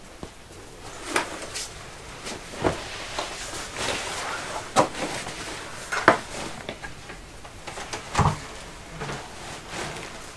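Scattered knocks, clunks and rustling of backpacks being handled and set down, with footsteps, in a small canvas tent; a heavier thud comes about eight seconds in.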